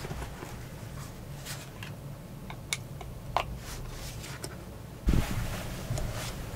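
Hands handling a heated blanket and its battery pack: a few small clicks and taps on the pack, with a louder rustle of the blanket fabric about five seconds in, over a steady low background hum.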